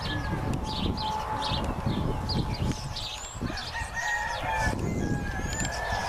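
Chickens calling: a rooster crowing with drawn-out calls in the second half, among repeated short chirping calls, over a steady low rumble.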